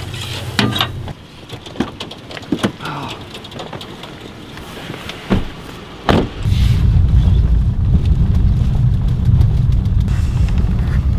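A few metallic clicks and knocks as the diamond-plate dog box door is latched, then a heavy thud about six seconds in like a vehicle door shutting. After that a vehicle engine runs with a steady low drone, heard from inside the cab.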